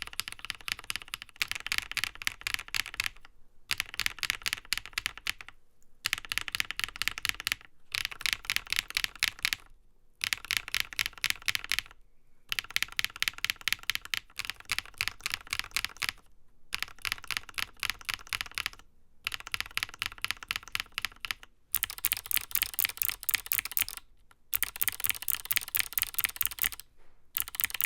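Fast typing on a NovelKeys Classic TKL mechanical keyboard: runs of quick keystroke clacks a couple of seconds long, broken by short pauses. The clicks sound brighter and sharper in the last few seconds.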